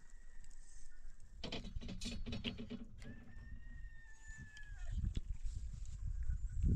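Goat bleating once, a wavering call about a second and a half in, followed by a thin high steady note lasting about a second and a half. Low rustling near the end.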